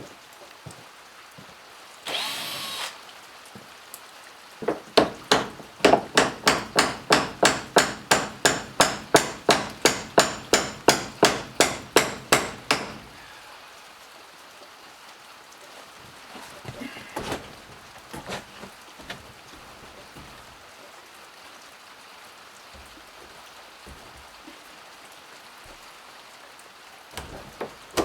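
A hammer driving into wood with a steady run of sharp blows, about three and a half a second for some eight seconds, each ringing briefly. Just before it there is a short whirr, and a few scattered knocks come after. A steady rain hiss runs underneath.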